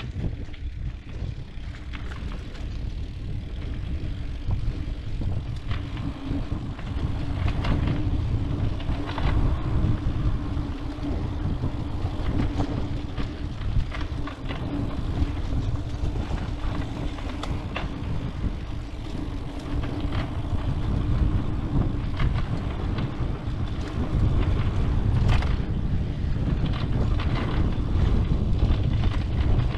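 Mountain bike riding down a dirt trail: wind buffeting the microphone and tyres rolling over dirt, with a steady hum throughout and frequent clacks and rattles as the bike goes over bumps.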